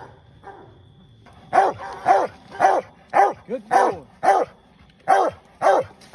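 Walker coonhound barking over a downed raccoon, faint at first, then loud from about a second and a half in: about ten barks, roughly two a second, each rising and falling in pitch.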